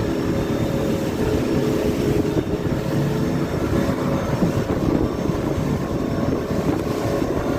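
Speedboat engine running steadily under way, with wind noise on the microphone.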